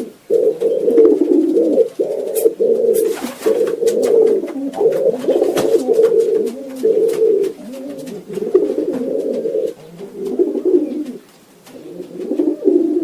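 Several pigeons cooing, their low, rolling coos overlapping almost continuously, with a short lull near the end. A few sharp clicks sound among the coos.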